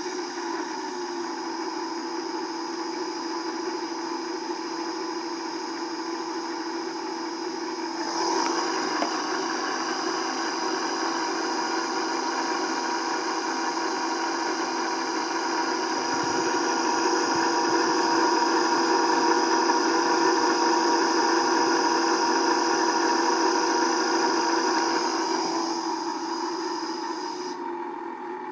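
Baldor 7.5 hp three-phase electric motor running at about 800 rpm on an undersized Mitsubishi variable-frequency drive, a steady electrical whine with several held tones. About eight seconds in it steps up in level, and it grows louder again mid-way. Near the end it fades and the high whine cuts off suddenly as the overloaded inverter shuts off on a transistor thermal protection fault.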